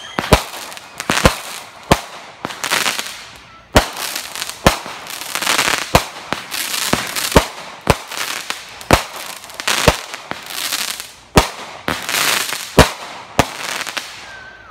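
Consumer aerial fireworks going off: about a dozen sharp bangs at uneven intervals, with crackling and fizzing between them. The bangs die away near the end.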